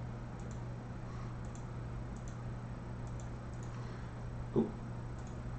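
Computer mouse clicks, a few at a time, over a steady low hum. About four and a half seconds in, a brief low thump is the loudest sound.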